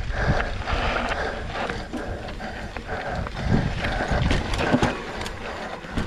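Mountain bike rolling fast down a dirt singletrack: a continuous noisy rumble of tyres on dirt, with irregular sharp clicks and knocks as the bike rattles over bumps.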